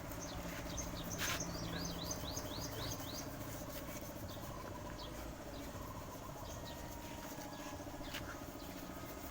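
A bird giving a quick run of about ten short, falling chirps a little over a second in, over a steady low hum.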